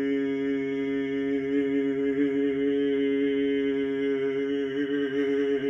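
A man's voice sounding one long vocal tone, held on a single steady pitch with a slight waver, as a chant-like toning during a bioenergetics exercise.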